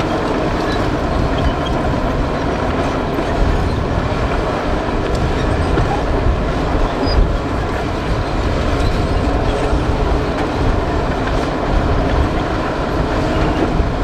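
Heavy earthmoving machinery running: a steady, dense diesel rumble from dump trucks tipping their loads and a crawler bulldozer working.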